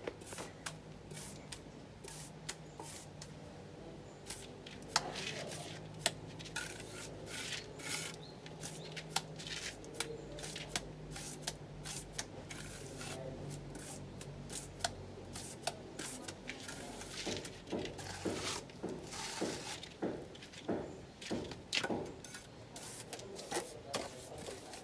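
A plastering trowel rubbing and scraping over a fresh cement-plastered wall in repeated strokes, which come more regularly in the last several seconds. A low steady hum runs underneath through the first two-thirds.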